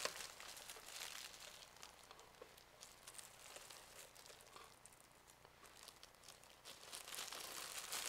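Faint crinkling and rustling of packaging being handled as a power supply's cable pouch is unhooked, with a few light ticks.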